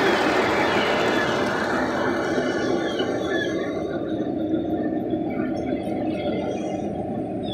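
O-scale model train running along its track, a steady rumble that slowly fades, with a few short high squeals about two and a half seconds in and again near the end.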